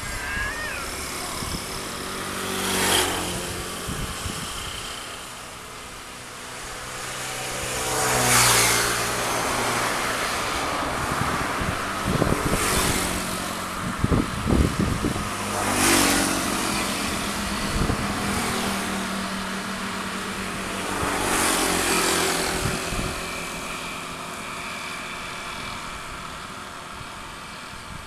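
Engines running steadily, with four swells of louder motor noise that each rise and fall over a second or two, and a few sharp knocks about halfway through.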